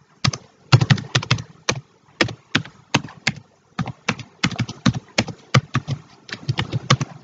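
Typing on a computer keyboard: quick, irregular key clicks, with a couple of brief pauses.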